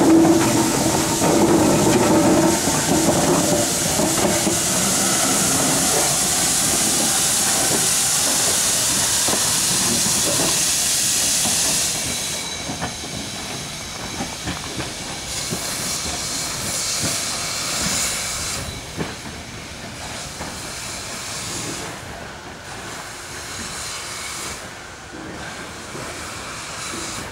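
Steam locomotive hissing loudly as it moves off along the track. The hiss drops sharply about twelve seconds in, then comes and goes more faintly as the engine draws away.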